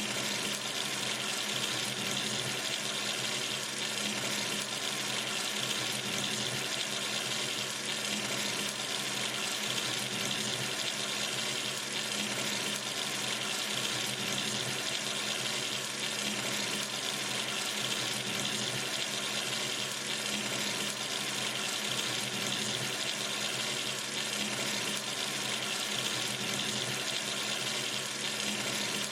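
Water running steadily from a sink tap, an even unbroken splashing hiss strongest in the upper-middle range.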